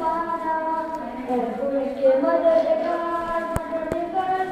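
A young man's solo voice chanting a noha, a Shia mourning elegy, in long held melodic notes that glide between pitches. Two sharp clicks come near the end.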